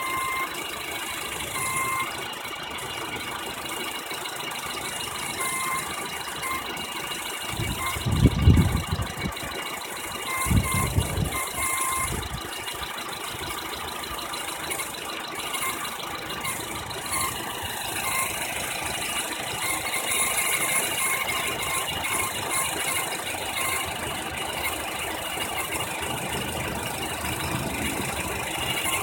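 2009 Honda Civic's 1.8-litre i-VTEC four-cylinder engine running, with a weird high-pitched whine from under the bonnet that comes and goes, over a light mechanical rattle. The cause of the whine is unknown to the owner. Two short low rumbles come about 8 and 11 seconds in.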